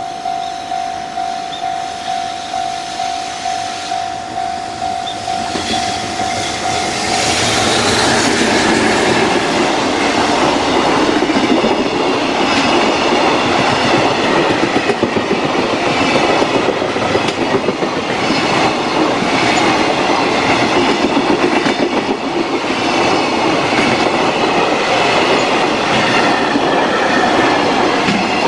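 Container freight train passing close by: wheels running loud on the rails with a rhythmic clickety-clack as the wagon bogies go by, growing louder about seven seconds in as the wagons reach the spot. Before that, a ringing tone pulses about twice a second.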